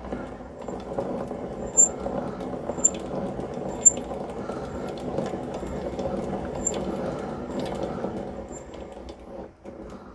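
Hobbymat MD65 lathe being hand-cranked through a 2 mm pitch thread-cutting pass on an oiled worm blank: change gears and lead screw turning while the tool cuts, a steady grinding rattle with a few faint high ticks. It stops near the end.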